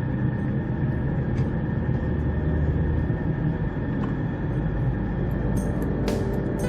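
Steady road and engine noise heard inside a moving car's cabin, a low even rumble.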